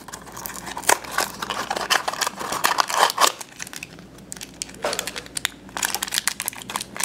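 A small cardboard blind box is pulled open by hand, then the foil bag inside is crinkled and torn open: irregular crackling and rustling.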